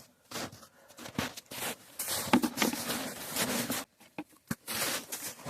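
Irregular rustling and scraping noises in short bursts, with a brief lull a little before four seconds in and a couple of sharp clicks just after it.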